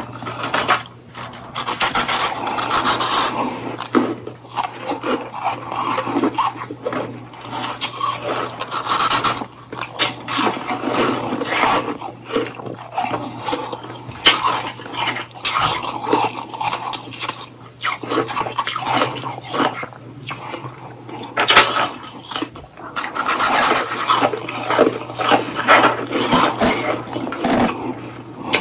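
Close-miked crunching and chewing of powdery shaved-ice popsicles: a dense run of irregular crisp crunches, bite after bite.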